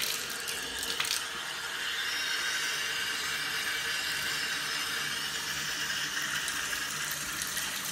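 Bathtub faucet running, a stream of water pouring from the spout into the tub, with a brief click about a second in.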